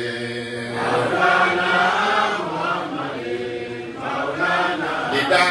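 A man's voice chanting Islamic devotional praise into a microphone, in drawn-out melodic phrases with brief pauses between them.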